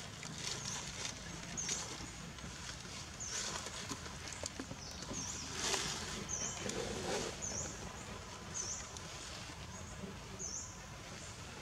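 Dry fallen leaves crackling and rustling as macaques shift and scramble over them, with a short high chirp repeating every second or so.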